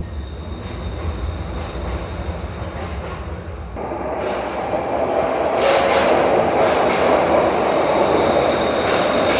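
Glasgow Subway train running through its tunnel, heard from on board: a steady rumble of wheels on rail with a thin high whine. About four seconds in, the noise jumps up sharply and gets louder.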